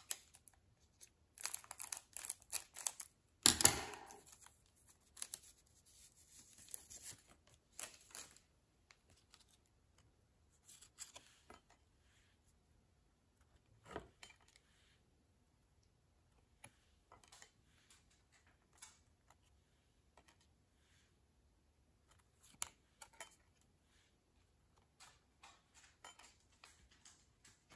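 A trading-card pack's wrapper torn and crinkled as the baseball cards are pulled out, the loudest rip about three and a half seconds in. Then the cards are slid and flicked through by hand, in scattered soft clicks and rustles.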